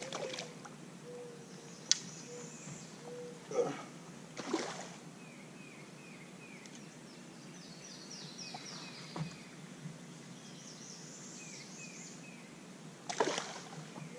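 A hooked bowfin splashing and thrashing in shallow water at the bank as it is landed: a few short splashes, near the start, twice around four seconds in, and again near the end. Birds chirp repeatedly in the background.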